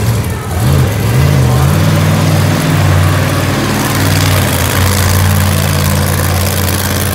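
Monster truck engine running as the truck rolls slowly past close by, with a couple of short revs about a second in, then running steadily.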